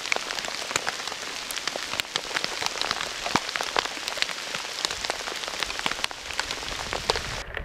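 Rain pattering: a steady hiss with many sharp ticks of drops, which cuts off suddenly near the end.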